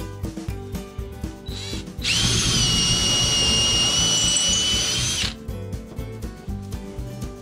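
Cordless drill/driver running steadily for about three seconds, driving a screw into wood, starting about two seconds in after a brief trigger blip, over background music.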